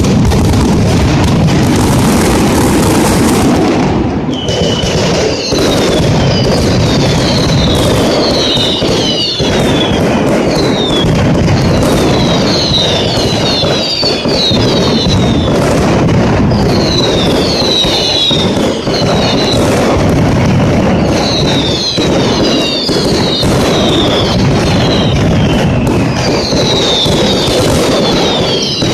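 Mascletà firecracker barrage: a dense, continuous rattle of bangs and booms. From about four seconds in, many short whistles fall in pitch over it.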